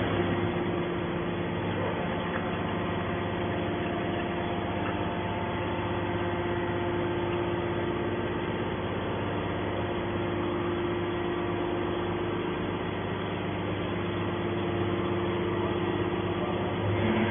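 Hydraulic scrap metal baler running: a steady machine hum with a few held tones and a few faint knocks.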